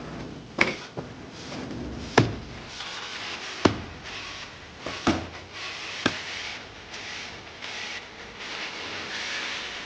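Heavy chops of a cleaver on a wooden chopping board: about five sharp blows one to one and a half seconds apart, with softer knocks and rubbing between them.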